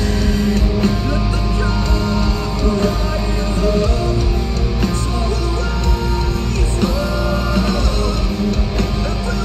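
Live heavy rock band playing at full volume: guitars, bass and drums under the lead singer's vocals.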